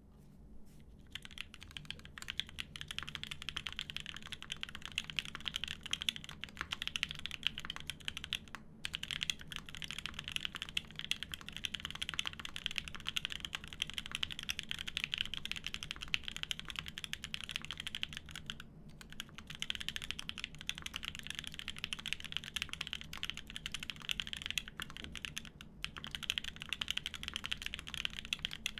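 Fast, continuous typing on a Semo TKL mechanical keyboard with lubed Konpeitou switches on an aluminium plate and GMK keycaps: a dense run of keystroke clacks, with brief pauses about nine, nineteen and twenty-six seconds in.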